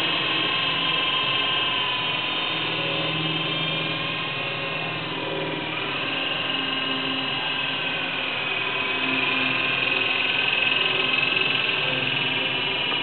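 Air Hogs Gryphon toy RC helicopter in flight: the whine of its small electric motors and spinning rotors, steady but drifting gently up and down in pitch as the throttle changes.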